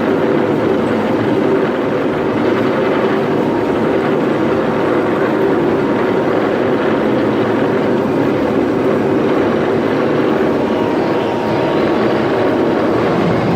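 Train rolling along its track, a steady, loud rumble without a break.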